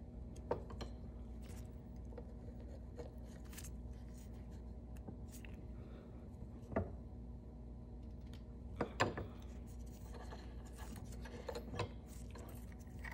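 A few light taps and clicks of small metal jewellery tools being handled at a bench, over a steady low hum. The loudest taps come as a quick pair about nine seconds in.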